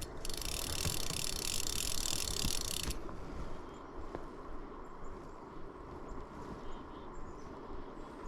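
Steady rush of river water. Near the start a high hiss runs for about three seconds and cuts off suddenly.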